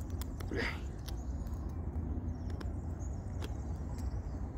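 A cheap survival knife's blade cutting and scraping into a stick of wood in short, irregular strokes, with one fuller scrape about half a second in. The blade bites poorly into the wood. A steady low rumble runs underneath.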